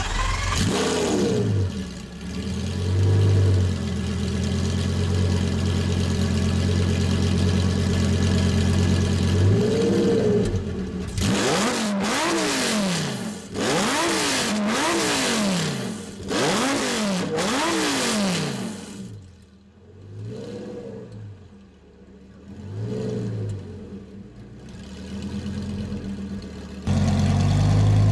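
Lamborghini Gallardo Superleggera's V10 firing up with a flare, then settling into a steady idle. About ten seconds in it is blipped, then revved in a run of about six quick blips that rise and fall, followed by two smaller blips. Near the end it is idling again, louder.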